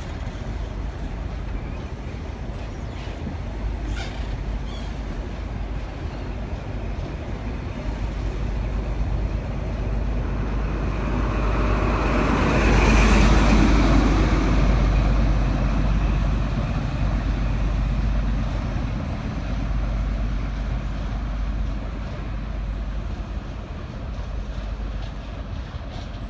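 A departing InterCity 125 train: the coaches run past with a steady rumble, then the diesel engine of the rear Class 43 power car swells to a peak with a high whine about halfway through as it passes. The sound then fades slowly as the train pulls away.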